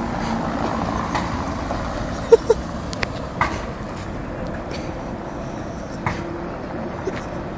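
Steady traffic noise, with a few short knocks and clicks, the loudest a pair of clicks a little over two seconds in.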